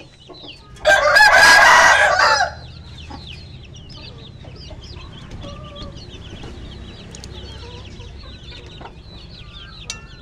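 A rooster crows once, loud, for about a second and a half, starting about a second in. Many small, high, quickly falling chirps go on throughout.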